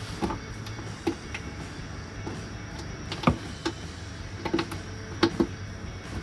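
Irregular light clicks and knocks as plastic and metal parts are handled and pushed into place inside a car's wheel well, over a steady low hum. The loudest knock comes a little past three seconds in.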